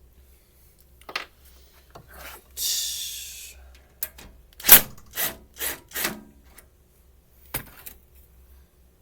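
Hand work in a window air conditioner's metal chassis: a short scrape about two and a half seconds in, then five sharp knocks in quick succession and one more knock near the end.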